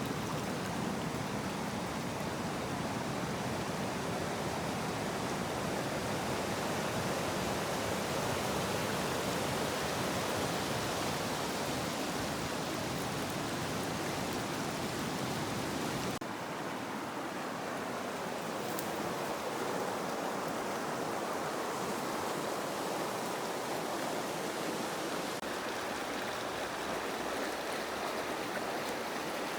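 Cache la Poudre River flowing fast, a steady rush of water. About halfway through the sound shifts suddenly, with less low rumble.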